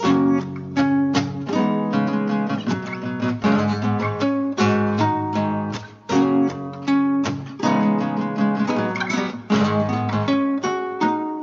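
Improvised rock jam: guitar picking notes and chords over a bass guitar line, at an easy, relaxed pace.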